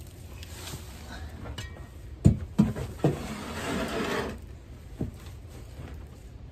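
A long-handled tool knocking and scraping on the wooden floor and boards of a chicken coop as old bedding is cleaned out: a few sharp knocks a little over two seconds in, then about a second of scraping, and one more knock about five seconds in.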